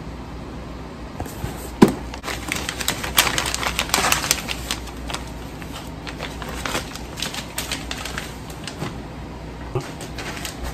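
Plastic packaging and clear vacuum-sealer bags crinkling and rustling as frozen breaded chicken burgers are handled, with one sharp knock a little under two seconds in.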